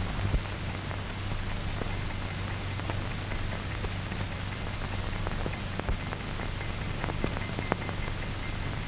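Surface noise of an old optical film soundtrack: a steady hiss and low hum with scattered crackles and clicks.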